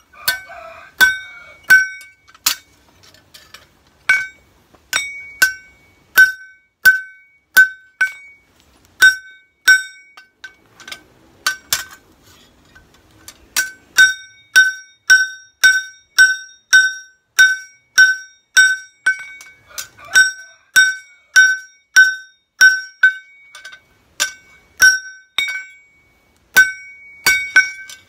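Blacksmith's hand hammer striking a knife blade on a steel anvil, blow after blow, each ringing with a clear high note. The strikes come about two a second, with a short lull about halfway through.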